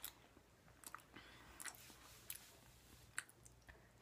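Faint mouth sounds of someone eating a banana quickly: a few soft, irregular wet clicks of chewing and swallowing.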